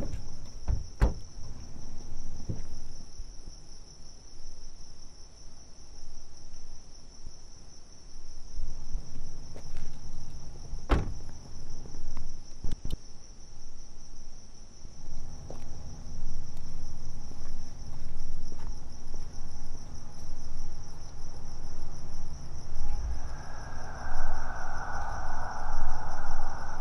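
Crickets chirping in a steady night-time chorus, with a few sharp clicks and knocks and a low rumble underneath. A louder, steady drone joins in for the last few seconds.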